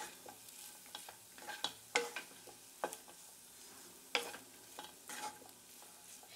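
Wooden spatula scraping and tapping against a pan as macaroni and scrambled egg are stirred and tossed, in irregular strokes, over a faint frying sizzle.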